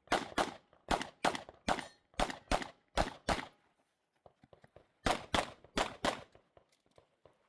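Glock 17 Gen 5 9mm pistol firing rapidly in quick pairs, about nine shots in the first three and a half seconds. After a pause of about a second and a half with faint clicks, another fast string of about five shots follows.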